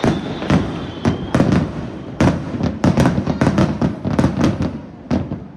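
Aerial fireworks shells bursting in quick succession: a dense barrage of sharp bangs, each trailing a rumbling echo, thinning out near the end.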